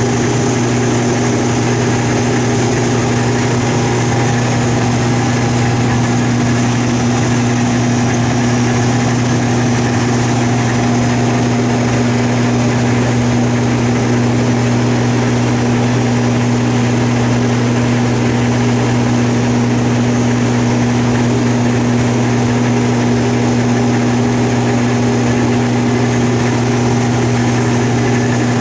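Combine harvester running steadily at harvest: a constant, unchanging machine drone with a deep hum.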